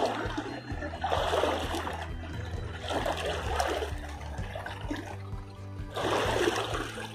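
River water splashing in repeated bursts, roughly one every second or so, over steady background music.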